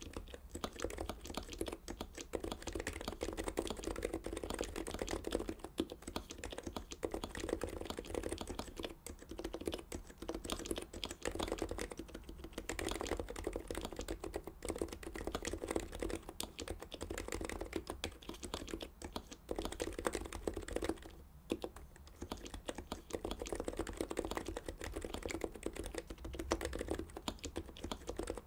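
Continuous typing on a Heavy-9 Topre-style keyboard with Deskey sliders and BKE-style rubber domes, GMK keycaps on a stainless steel plate: a dense stream of key strokes with a short lull about three-quarters of the way through.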